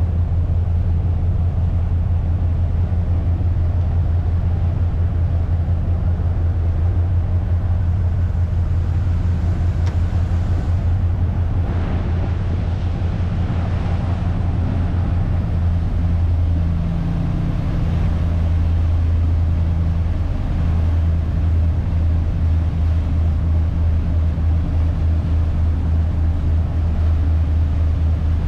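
A 40-foot trawler's diesel engine running steadily underway, a deep, even drone.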